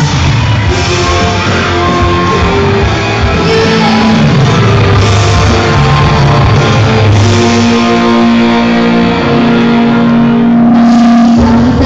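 Loud rock concert music played through a PA system, starting abruptly at full loudness, recorded on a mobile phone.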